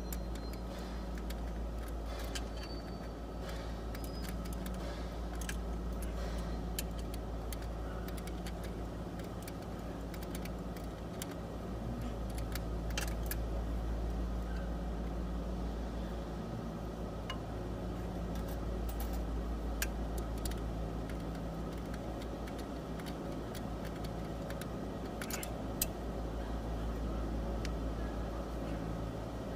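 Metal tools and parts clinking now and then over a steady low hum, as the starter motor is being unbolted and removed from under the vehicle.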